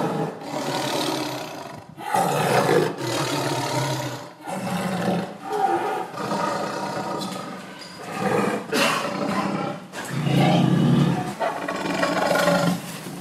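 Tiger roaring in a series of deep calls, one every second or two.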